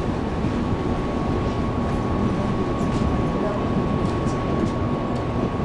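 Taiwan Railways EMU700 electric multiple unit running at speed, heard from inside the passenger car: a steady rumble of wheels on the rails with a thin steady whine running through it, and a few faint ticks midway.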